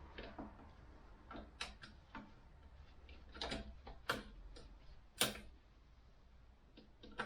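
Irregular light clicks and knocks of tools and metal parts being handled, about ten in all, the sharpest a little past five seconds in.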